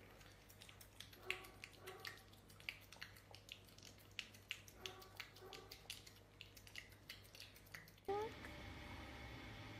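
French Bulldog puppy eating soft wet food from a metal bowl: rapid, irregular wet smacking and clicking from her mouth as she laps and chews. About eight seconds in it cuts to a steady hiss with a brief rising squeak.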